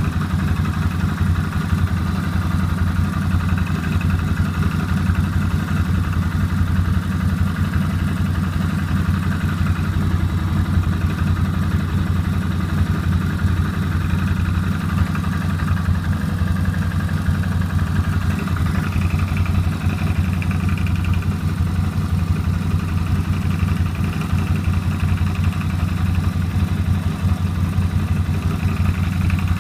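CFMOTO X8 ATV's 800 cc V-twin engine idling steadily, with an extraneous knock coming from the engine whose cause the owner does not know.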